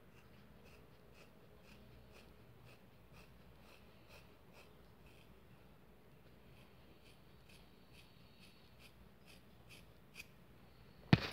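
Scissors snipping again and again through a thick ponytail of hair, faintly, about two snips a second. A single sharp knock near the end is the loudest sound.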